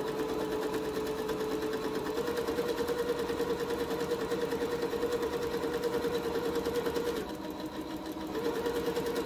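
Electric sewing machine stitching a seam through two layers of fabric, its motor running steadily with rapid, even needle strokes; it slows briefly near the end, then speeds up again.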